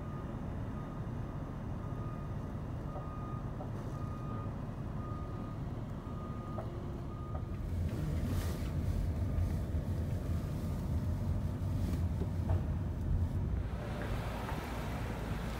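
Steady low vehicle and road rumble with a construction vehicle's reversing alarm beeping about once a second for the first seven seconds or so. The rumble grows louder for several seconds in the second half.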